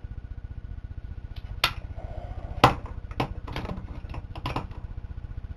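Snap ring pliers and hands working inside a Ford C4 automatic transmission case: a handful of sharp metal clicks and taps, the loudest about two and a half seconds in. A steady low hum sits under them.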